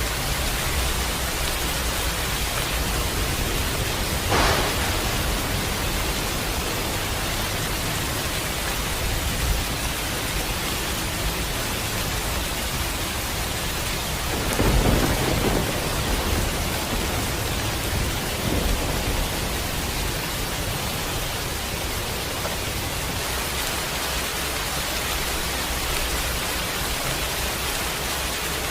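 Steady rain falling throughout a thunderstorm. About four seconds in comes a short, sharp thunder crack. Around fifteen seconds in there is a louder, longer rumble of thunder.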